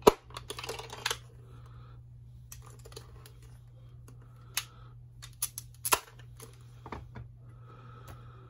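Hard plastic toy parts being handled and fitted together: a sharp snap at the very start, a brief rustle, then scattered clicks and taps of the Wind Raider's plastic body against its clear plastic display-stand piece, over a steady low hum.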